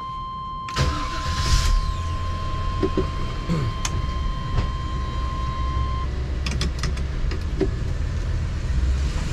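Winnebago motorhome's engine and road rumble as it moves off from a stop, heard from the driver's seat inside the cab, with a brief hiss as it gets going. A steady high electronic warning tone sounds over it and stops about six seconds in.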